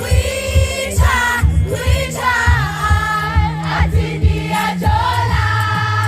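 A cappella vocal group singing in harmony: several voices over a sung bass line, with a steady beat.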